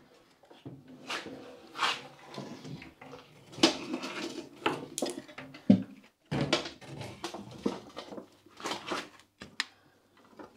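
Irregular metallic clanks, scrapes and rattles as a Citroën Méhari engine is pulled out of the chassis on a metal tray, its cables and linkage knocking against the frame, with one sharp knock a bit past halfway.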